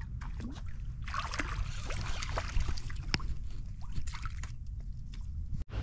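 A hooked black drum splashing at the water's surface as it is reeled in to the bank, with a burst of heavier splashing about a second in, over a steady low rumble.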